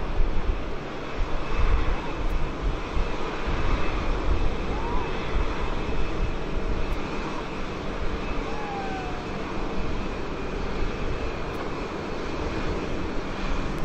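Boeing 787-9 jet engines at taxi power: a steady jet whine with a faint held high tone over a low, uneven rumble.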